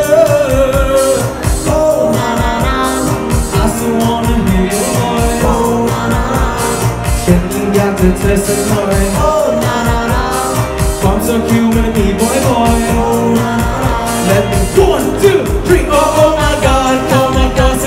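Pop song with a steady beat and a singer's voice over it, sung live into a handheld microphone.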